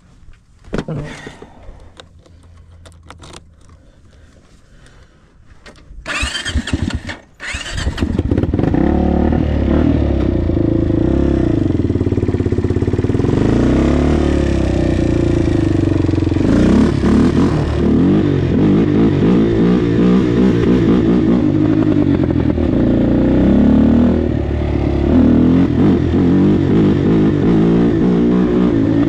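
Kawasaki KFX400 quad's single-cylinder four-stroke engine: a few knocks, then two loud blips about six seconds in, after which the engine runs loudly under way, revs rising and falling as the quad is ridden.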